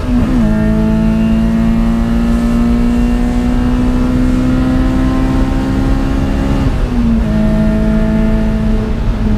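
Honda B16 VTEC four-cylinder in a Citroën AX, heard from inside the cabin, pulling hard near 8,000 rpm with its note climbing slowly. About seven seconds in the pitch dips briefly and starts climbing again, as a gear is changed.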